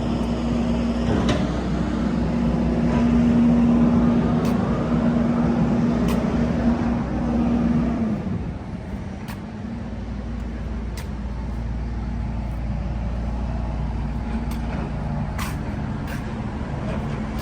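A motor vehicle running: a steady engine hum that falls away about eight seconds in, leaving a low rumble, with a few scattered clicks.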